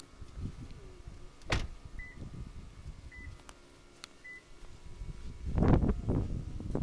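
Three short, high electronic beeps about a second apart, after a single sharp knock. A louder burst of rustling or wind noise on the microphone comes near the end.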